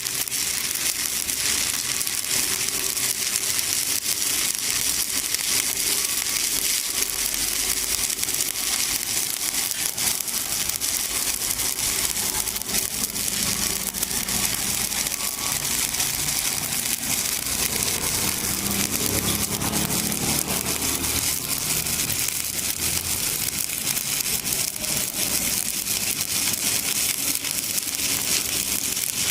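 Stick (shielded metal arc) welding arc crackling and sizzling steadily as the electrode burns along the plate joint, with a faint low hum underneath.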